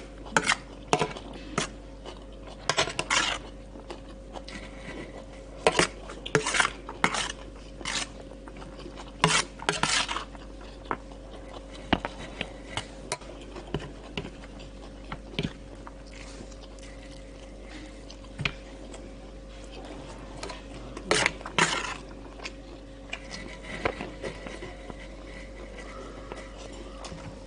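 Metal spoon scraping and clinking against a steel plate as rice is scooped up, in scattered clusters of sharp clicks.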